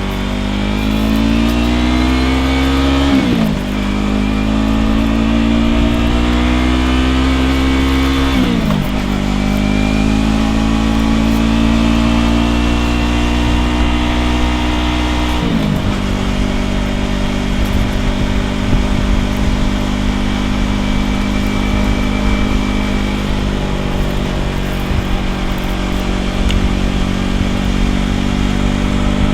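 2015 Yamaha R3's parallel-twin engine through a Ransoto slip-on exhaust, accelerating through the gears: the engine note climbs, drops at three upshifts about 3, 8.5 and 15.5 seconds in, then holds a steady cruise.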